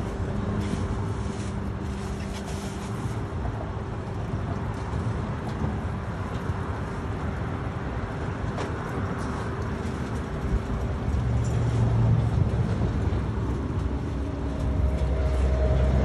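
Chile roaster running: a steady roar with a constant motor hum, the low rumble growing louder about eleven seconds in and again near the end.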